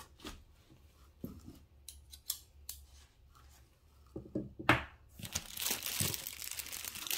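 Plastic packaging being handled: scattered light knocks and rustles, a sharp crackle about four and a half seconds in, then steady crinkling of the plastic wrapping as a wrapped strip of glitter tubes is pulled out of a cardboard box.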